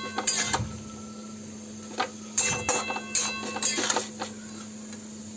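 Metal spatula stirring leafy greens in an aluminium kadai: scattered scrapes and clinks against the pan that ring briefly, most of them between about two and four seconds in.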